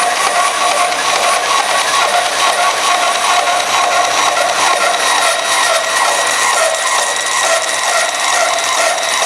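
Vertical-blade traveling-table bandsaw running steadily with a whine of several steady tones while its blade cuts through a roll of thin plastic thermoforming sheet wound on a cardboard core.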